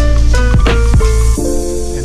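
Background music with sustained chords, drum hits and a heavy bass; the bass drops away about one and a half seconds in.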